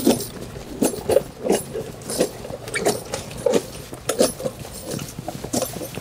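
Ride-on toy horse's stride mechanism and wheeled hooves clunking over concrete as the rider bounces it forward: short knocks coming unevenly, roughly two a second.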